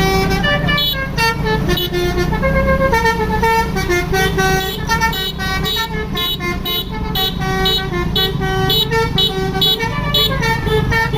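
Indonesian bus 'telolet' horn, a multi-note horn, playing a rapid tune of short notes that step up and down in pitch, over the low running of the bus engine.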